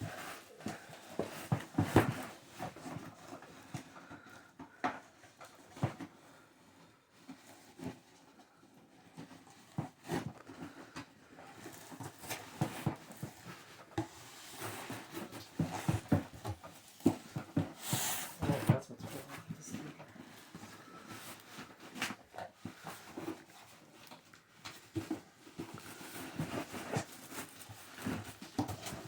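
Irregular knocks, clicks and rattles of a large computer tower case being handled and pulled out, several sharper knocks among them.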